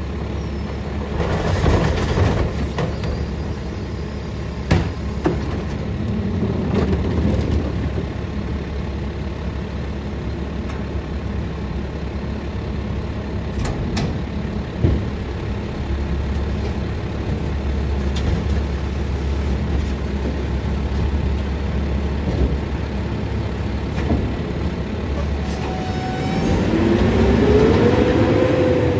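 Mack LEU garbage truck with a Heil Multitask side-loader body running at the curb, its diesel engine drone steady, with a few sharp clanks as a recycling cart is tipped into the hopper. Near the end the engine revs up, rising in pitch and getting louder as the truck pulls away.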